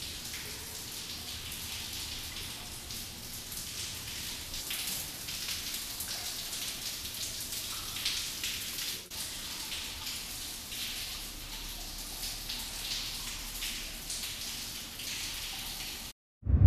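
Water dripping in a mine tunnel: a steady faint patter of many small drips that cuts off suddenly shortly before the end.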